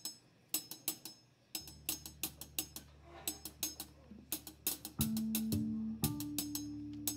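Live rock band starting a song's intro: sharp, wood-block-like percussion clicks in a loose rhythm, a low drone coming in about one and a half seconds in, and loud sustained guitar notes joining about five seconds in.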